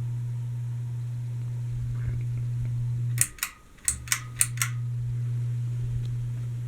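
Generic 52-inch hugger ceiling fan's motor humming steadily. About three seconds in, a sharp click cuts the hum out; a second click brings it back under a second later, followed by three more quick clicks.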